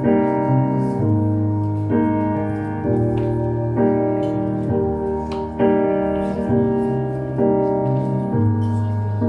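Recorded piano music played over a PA speaker: slow, sustained chords, a new one struck about once a second, the quiet piano intro to a dance track before any singing comes in.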